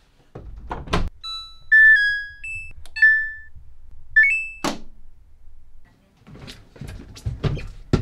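A front-loading washer-dryer's door is pushed shut with a couple of thunks. The control panel then plays a short run of electronic beeps that step up and down in pitch as buttons are pressed to set a standard wash. A sharp knock follows a little past halfway, and soft knocks and rustles come near the end.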